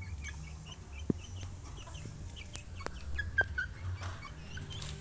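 Young Burmese (Birma) chickens, about two months old, calling in many short, high peeps and soft clucks, with a few sharp clicks among them.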